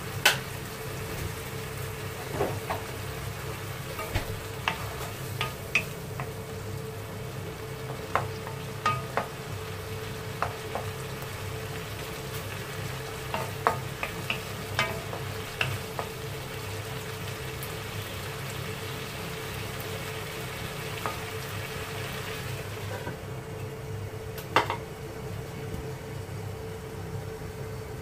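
Shrimp sizzling in garlic butter and oyster sauce in a nonstick wok, with a wooden spatula knocking and scraping against the pan in scattered strokes through the first half, over a steady hum. About 23 s in the sizzle turns duller, and a single knock follows soon after as a lid goes onto the pan.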